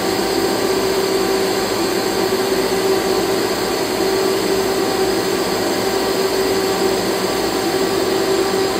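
Steady, even whir of running machinery with a constant hum, like a fan or pump in a machine shop.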